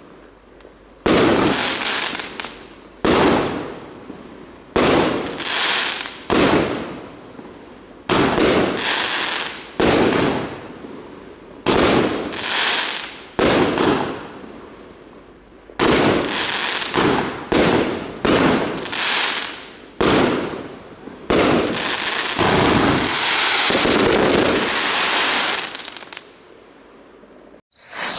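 Trigger Happy 32-shot 1.3G firework barrage cake firing: a string of sharp bangs, each fading over about a second, spaced out at first, coming faster about halfway through, then running together in a dense closing volley before stopping.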